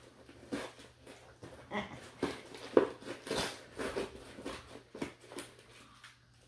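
Irregular rustling and crinkling from handling: a plastic postal mailer being opened, and cloth being pulled about.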